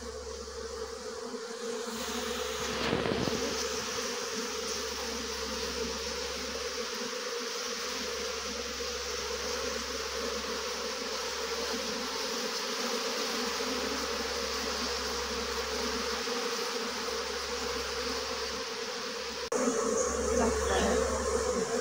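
A large mass of honey bees buzzing steadily over an opened box hive, its frames crawling with bees. The buzzing steps up louder shortly before the end.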